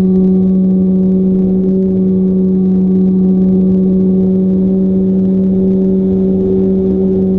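Radio-controlled plane's electric motor and propeller running at a steady pitch, giving a constant low drone with overtones, over a low buffeting rumble.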